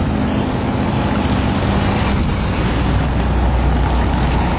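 Steady, loud rumble of wind buffeting the microphone, mixed with a vehicle's engine and road noise; the low rumble swells about three seconds in.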